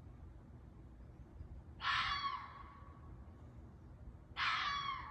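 An unidentified animal calling twice, about two and a half seconds apart: each cry is loud and short and falls in pitch.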